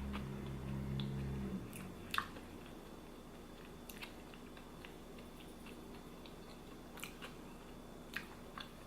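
A person chewing food close to the microphone, with soft wet mouth clicks and a few sharp ticks, the loudest about two seconds in. A low hum in the background stops about a second and a half in.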